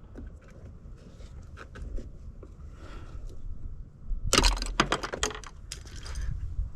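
Screwdriver prying at a plastic door-handle back piece: small clicks and scrapes, then a cluster of sharp plastic cracks and snaps about four seconds in as its clips pop free.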